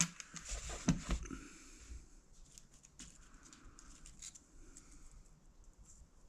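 Light clicks and rustles of a cigar box and its packaging being handled, thickest in the first second or so, then scattered faint ticks.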